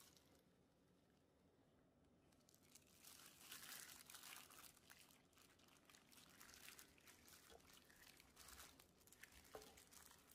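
Faint, scattered crinkling and wet squishing as a hand in a thin plastic food-prep glove turns chicken legs through thick wet batter in a stainless steel bowl, starting a couple of seconds in.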